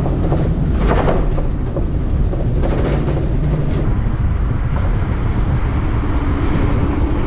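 Steady wind rush and road noise heard from the open cargo bed of a moving pickup truck as it overtakes lorries. A low steady drone joins in near the end.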